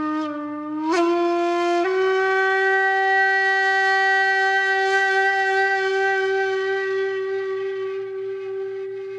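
A sustained, reedy wind-instrument note with many overtones. It steps up in pitch twice in the first two seconds, then holds one long steady note.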